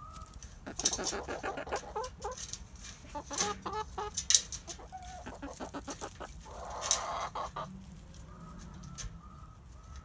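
Domestic hens clucking in quick runs of short clucks, with a longer, noisier call about seven seconds in. A single sharp click about four seconds in is the loudest sound.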